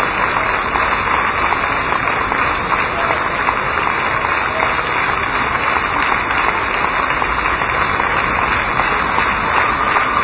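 Audience applauding steadily: dense, even clapping with no break.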